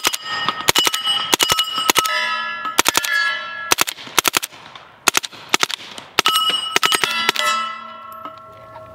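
A string of quick gunshots in short clusters, each hit making steel targets clang. The plates ring on at several different pitches between the shots.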